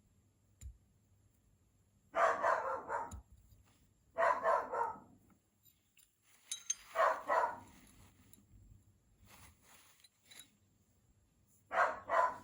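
A dog barking in four short bouts of two or three barks each, the last near the end.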